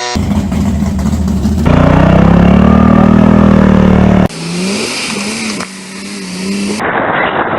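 Engine sounds from several different vehicle recordings cut together, each running or revving and ending in an abrupt cut: a steady run, a louder stretch with a gently rising and falling engine note, then a note that wavers up and down.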